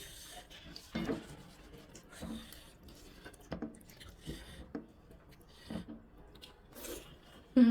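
Sounds of eating rice with dal and mashed vorta: soft squishing and rubbing of food on a plate and chewing, in scattered small clicks. A short, loud, falling vocal sound comes at the very end.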